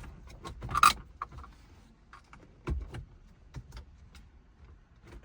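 Scattered clicks and knocks of metal and plastic as the head unit is lined up and pushed into the dash opening. The loudest knock comes about a second in and another near three seconds.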